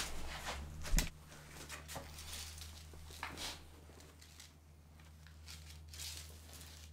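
Faint handling noises: a sharp knock about a second in, then light rustles and scrapes as a palm sander, sanding pad and plastic helmet are picked up and handled, over a low steady hum. The sander is not running.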